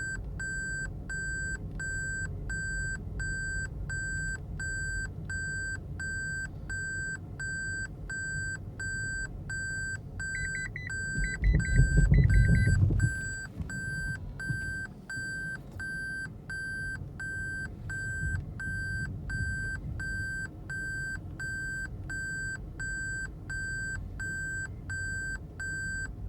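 A car's warning chime beeps in a steady, even repeat over the low rumble of the car. Near the middle, the rumble swells loudly for about two seconds while a quicker, higher chirping sounds briefly.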